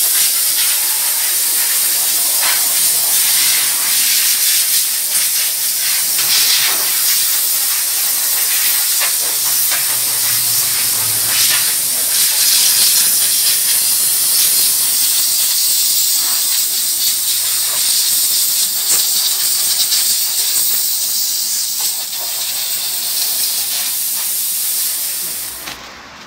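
Steam washer gun spraying hot water and steam into a car's engine bay: a loud, steady hiss that stops shortly before the end.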